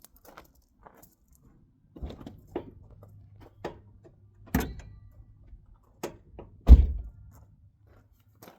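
Clicks, knocks and clunks as an unbolted car hood is handled and lifted, with one heavy low thud near the end.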